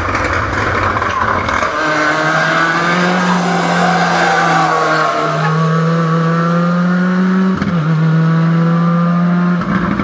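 Ford Escort WRC's turbocharged four-cylinder engine held at high revs under load, a steady drone with a brief dip about seven and a half seconds in, like a gear change.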